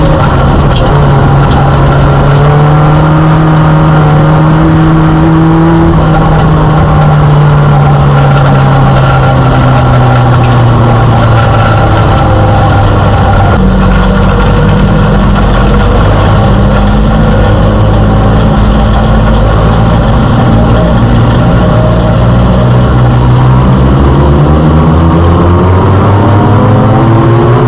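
Mini stock race car's engine, heard loud from inside the cockpit, running continuously at racing speed. Its pitch sinks gradually through the first half and climbs again near the end as the revs change around the oval.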